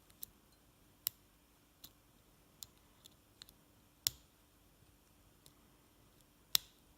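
Lock pick and tension tool working the pin-tumbler core of a KASP 14040 padlock: scattered small, sharp metallic clicks at irregular intervals, the two sharpest about four and six and a half seconds in.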